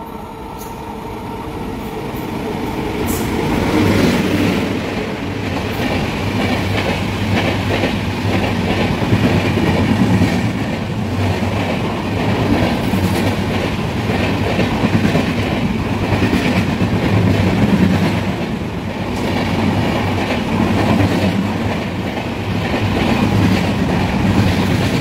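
Humsafar Express hauled by a WAP-7 electric locomotive approaching and passing at speed: a rising rush over the first few seconds, then the steady run of the coaches with wheels clattering rhythmically over the rail joints.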